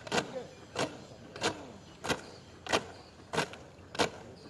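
Sharp, evenly timed strikes from soldiers drilling in unison, about three every two seconds, seven in all.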